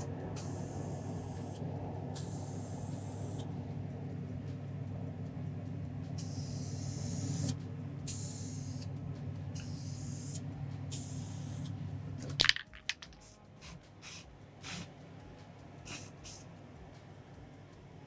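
Aerosol spray can of Aluma-Hyde II paint spraying in repeated hissing bursts of a second or two with short gaps between. About two-thirds of the way in there is a sharp knock and a steady low hum underneath stops; after that the spraying comes in short quick puffs.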